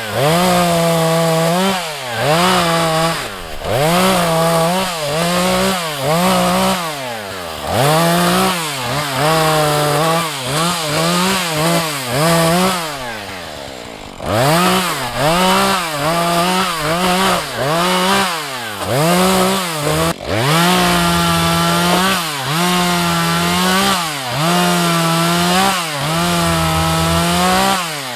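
Husqvarna 435 two-stroke chainsaw running at high revs, its pitch rising and falling again and again every second or two. Around the middle it sags briefly toward idle, then revs back up.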